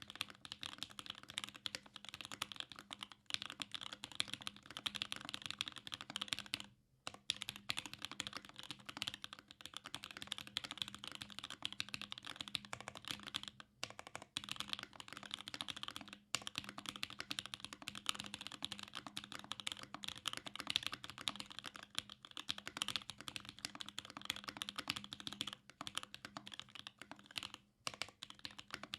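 Continuous fast typing on a custom mechanical keyboard with lubed Gateron Black Ink linear switches, a carbon fiber plate and GMK keycaps, a dense run of key clacks broken by short pauses about 7, 14, 16 and 28 seconds in.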